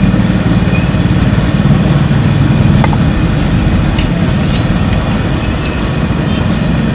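Steady low rumble of a small engine idling close by, over the sizzle of bakwan fritters frying in a wok of hot oil. Two light clicks come about three and four seconds in.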